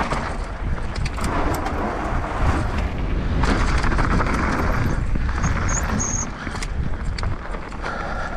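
Downhill mountain bike ridden fast over a rough trail: wind rumble on the helmet camera, tyres rushing over dirt and roots, and scattered sharp knocks and rattles from the bike.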